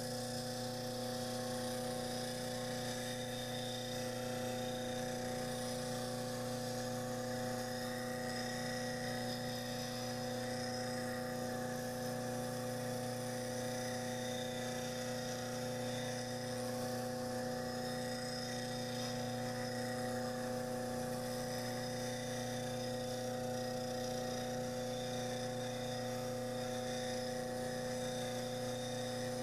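A homemade grinder, a cement mixer's electric motor spinning a treadmill flywheel faced with 120-grit sandpaper, runs with a steady hum. A steel spindle gouge is held against the abrasive throughout, adding a continuous grinding noise.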